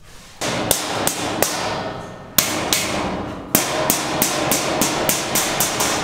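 A hand hammer striking repeatedly, roughly three blows a second in runs, each blow ringing on.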